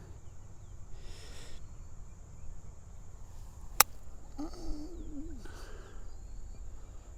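A golf club striking the ball: one sharp crack a little under four seconds in. Wind rumbles on the microphone throughout.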